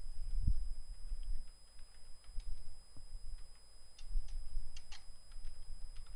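Computer keyboard typing: a few faint keystrokes in short scattered runs, over a low background rumble and a faint steady high whine.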